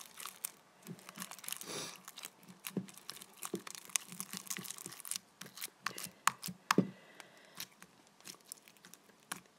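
Hands kneading and pulling sticky homemade slime, giving irregular small sticky clicks and crackles.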